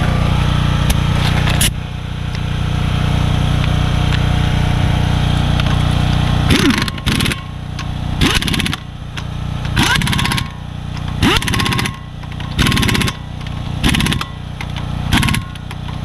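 Pneumatic impact wrench tightening a car's wheel lug nuts in a series of short bursts, about seven or eight of them roughly a second and a half apart, starting about six seconds in. Before and beneath the bursts there is a steady machine hum.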